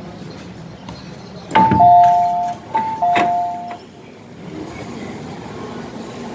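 MTR M-Train door chime sounding as the doors open: a two-note falling ding-dong played twice, each start marked by a sharp knock, over the train's steady background rumble.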